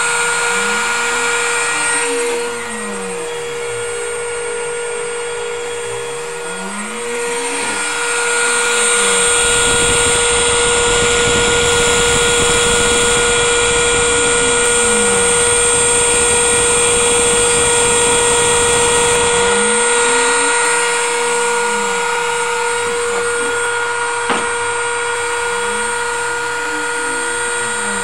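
Home-built CNC machine running a test: a steady whine from its spindle motor, with stepper motors whining up and down in pitch as the axes speed up and slow down. A louder, noisier stretch runs from about nine to twenty seconds in, and there is a single sharp click near the end.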